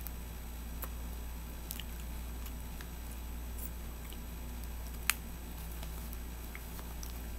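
Soft mouth sounds of a person eating a bite of cotton candy, with a few faint clicks and one sharp click about five seconds in, over a steady low hum.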